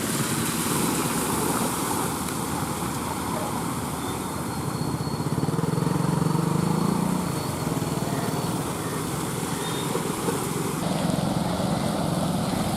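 A car engine running steadily under a continuous rushing noise, with an abrupt change in the sound near the end.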